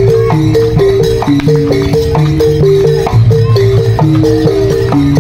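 Loud music: a quick repeating melody of short notes on pitched mallet percussion over a steady percussion beat.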